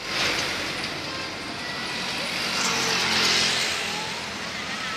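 Large bus passing on the road: engine hum under loud tyre and wind hiss that swells to a peak about three seconds in, then eases off.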